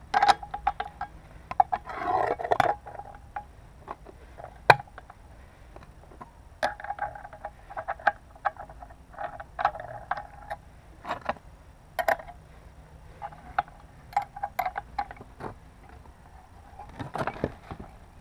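Irregular metallic clicks and clinks of an angle grinder's cutting disc and clamping nut being handled and fitted onto the spindle, with a scraping sound about two seconds in.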